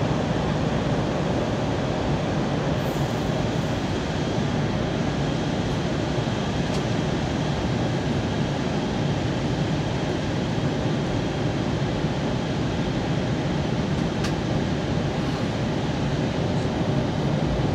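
Steady cabin noise of an Airbus A320 in flight: the drone of its engines and the rush of air over the fuselage, heard from inside the passenger cabin.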